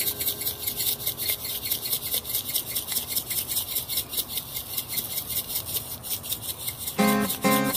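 Spice rub rattling inside an aluminium shaker as it is shaken over ribs: quick, even, scratchy strokes, several a second. Acoustic guitar music comes in near the end.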